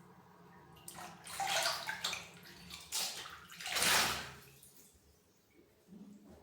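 Water splashing and pouring during a cat's bath in a tub, coming in a few surges, the loudest about four seconds in, then dying down.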